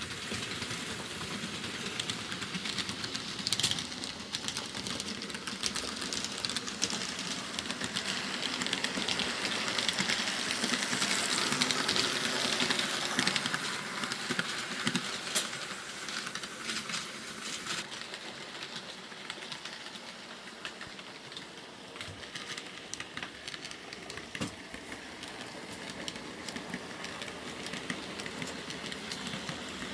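Model electric train running on 13 mm gauge track, its wheels clicking over the rail joints with a small motor running. It grows louder toward the middle as it passes closest and quieter after about eighteen seconds.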